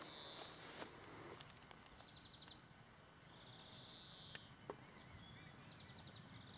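Faint outdoor quiet with a small bird singing short trilled phrases about every two seconds, and a couple of faint clicks about four seconds in.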